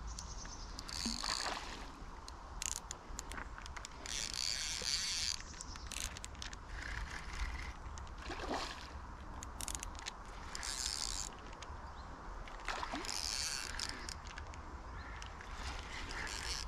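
Fishing reel ratcheting and whirring in several short spells, with scattered clicks between them, as a hooked carp is played in.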